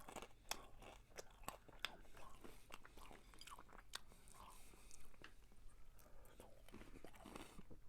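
Quiet close-up chewing and biting of food, with scattered faint mouth clicks.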